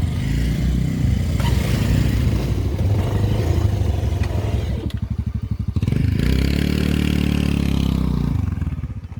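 Motorcycle engine running continuously under way, its note climbing and then dropping away as the throttle is opened and eased off in the last few seconds.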